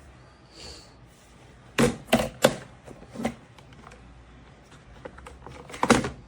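Sharp clicks and knocks from a robot vacuum's parts being handled: three close together about two seconds in, another a second later, and a louder double knock near the end.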